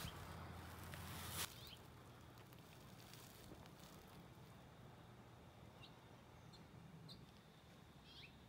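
Near silence: quiet outdoor ambience with a few faint, short bird chirps. About a second and a half in, a low hum stops with a click.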